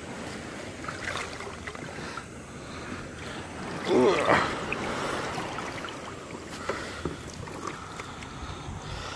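Sea water splashing and streaming off a bunch of caught rockfish as it is pulled out of the water beside a kayak, loudest for about half a second around four seconds in, over steady wind and lapping water with a few small knocks.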